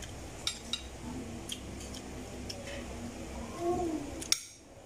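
Scattered light clicks and clinks of tableware at a meal: a fork and fingers against a plate. A brief soft voice comes in about three and a half seconds in.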